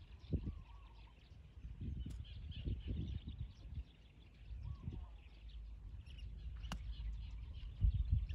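Golf club striking the ball once on a short chip shot, a single sharp click about two-thirds of the way in, over birds chirping and low gusts of wind on the microphone.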